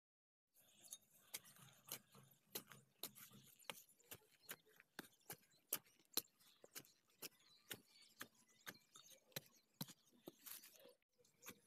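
A hand digging tool chopping again and again into dry, clumpy soil, sharp strikes about two to three a second, starting about half a second in.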